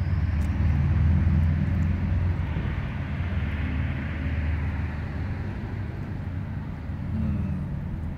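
Steady low engine drone with a broad rushing swell a few seconds in, easing off slightly toward the end.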